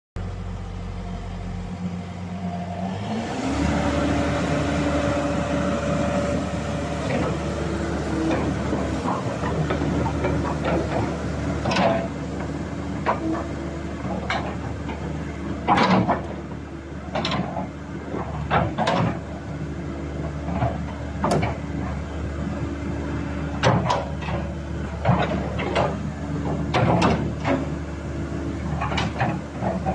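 Komatsu PC130-7 excavator's four-cylinder diesel engine running, rising to a higher, steady speed about three seconds in. From about eight seconds on there are many short, sharp clanks and knocks as the boom is worked.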